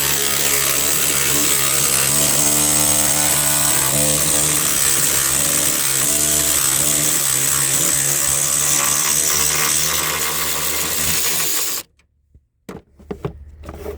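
Cordless power driver running continuously, spinning out a 10mm bolt, its motor pitch wavering slightly under load, then stopping abruptly about twelve seconds in; a few small clicks follow.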